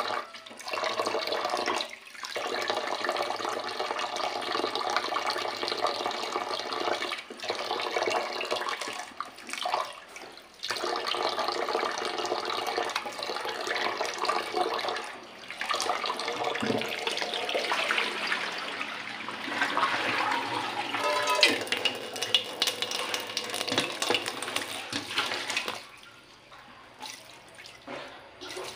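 Tap water running and splashing into a steel pot of squid in a stainless steel sink as the squid are rinsed by hand. The splashing breaks off briefly several times and drops lower near the end.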